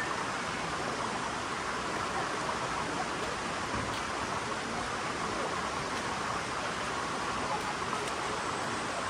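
Steady, even rush of flowing water, like a stream or waterfall.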